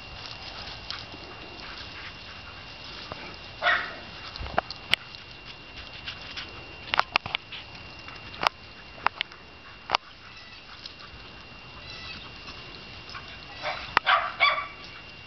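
An animal's short calls in two brief clusters, about four seconds in and near the end, with scattered sharp clicks or pops between them.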